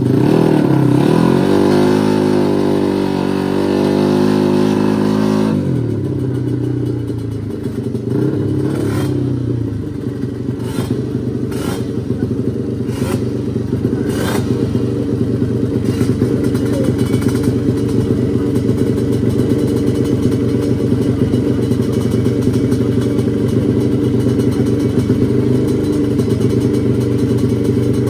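Drag-racing motorcycle engine revving up and down for about five seconds, then settling into a steady idle, with a few short clicks over it.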